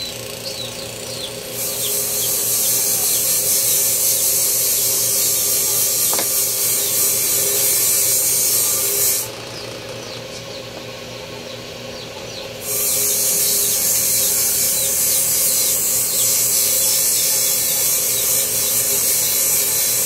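A power tool running with a steady high hiss in two long runs of about eight seconds, with a pause of about three seconds between them, over a constant low hum.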